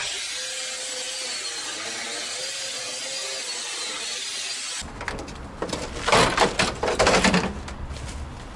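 Angle grinder cutting through the steel door hinges of a VAZ-2101, a steady high hiss with a faint whine. About five seconds in it stops, followed by loud metal knocks and clatter as the door comes free.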